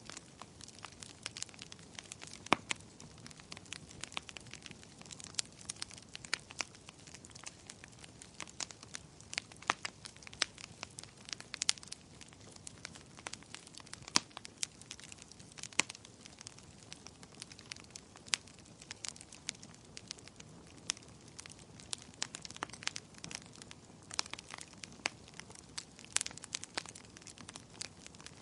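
Wood fire crackling: irregular sharp pops and snaps, several a second and now and then a louder one, over a soft steady hiss of burning.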